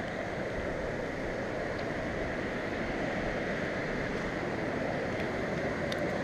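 Steady rushing noise of a fast-flowing river in flood.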